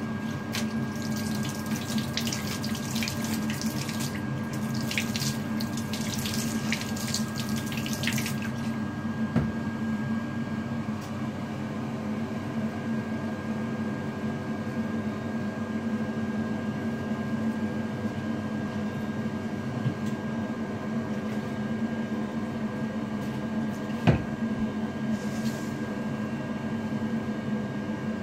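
Water running steadily through a shower mixer, a continuous rush with a steady hum underneath. A crackly, hissing spray sound fills the first eight seconds or so, and there is a single sharp knock near the end.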